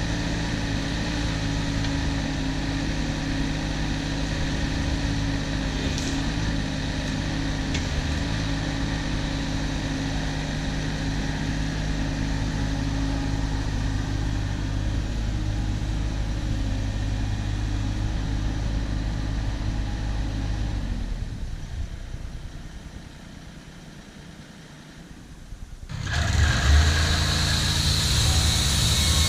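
Wood-Mizer LT15 portable band sawmill's engine running steadily, dying down about 21 seconds in to a quieter lull, then running loudly again near the end, starting abruptly.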